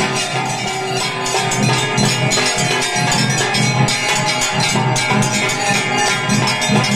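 Aarti: hand-rung temple bells clanging fast and continuously over a steady drum beat.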